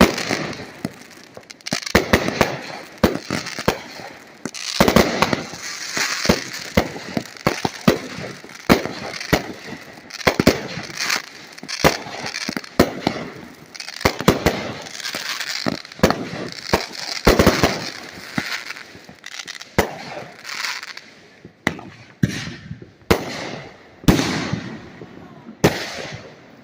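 Fireworks going off: a long run of sharp bangs at irregular intervals, one every second or so, with crackling between them.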